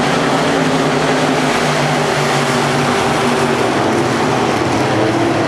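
Pack of dirt-track modified race cars running at racing speed. Several V8 engines overlap into one loud, steady drone whose pitches waver as the cars go by.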